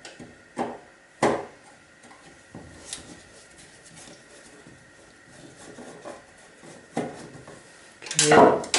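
Scattered metallic knocks and clinks of hand tools and a steel computer case being handled, a few separate taps a second or more apart, then a louder clatter of metal near the end as a screwdriver is taken up.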